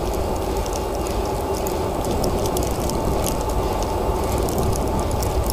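CSX diesel freight locomotive approaching, a steady low rumble with faint engine tones and scattered sharp high ticks.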